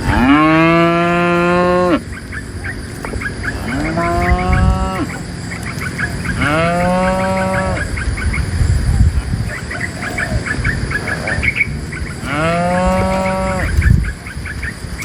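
Cattle mooing: four long moos, the first lasting about two seconds, with gaps of a few seconds between them, and short high clicks between the calls.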